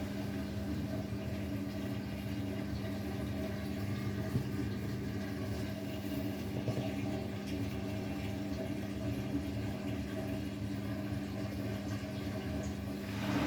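Beko WTK104121W washing machine running through the wind-up stage of its spin, a steady hum over a rough low rumble from the drum.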